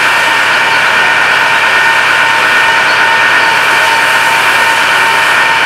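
An engine running steadily, with a constant whine over a noisy drone.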